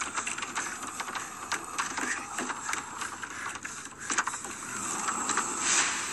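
Ghastly breathing of a horror film's creature: a rasping, crackling rattle of rapid clicks, with a breathy hiss that swells near the end.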